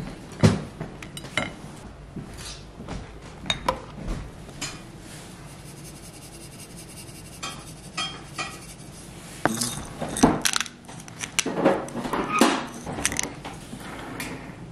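Kitchen handling sounds: scattered clicks, knocks and clinks of plates, cutlery and a pepper grinder as breakfast is plated, sparse at first and busier in the second half.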